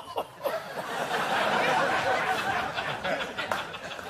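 Studio audience laughing at a punchline, a dense crowd laugh that fades out near the end.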